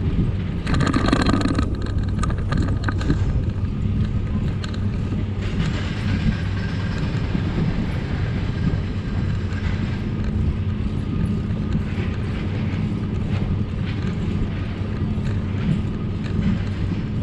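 Bicycle riding along a paved path: a steady rumble of tyres and rattling of the bike picked up by the bike-borne camera, with a louder rattle about a second in.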